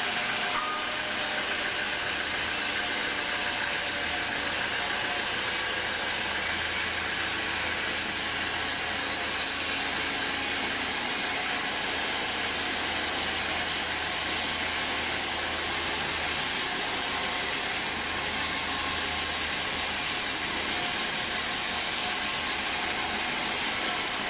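Homemade band sawmill running steadily as its blade cuts lengthwise through a teak log, the continuous whine and hiss of the blade in the wood over a low machine hum.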